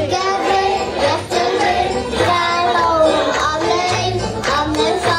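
A young girl singing a Dutch children's dance song into a microphone over a backing track with a steady beat.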